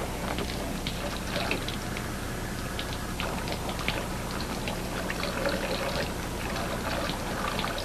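Water running from a faucet in a thin stream, a steady trickle with many small splashes.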